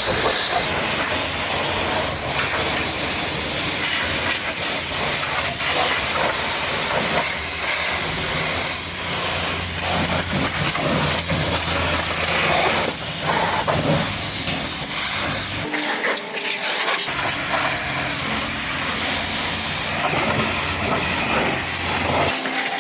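Pressure washer spraying a muddy truck: a steady hiss of spray, with a low hum underneath that drops out for about a second about two-thirds of the way through.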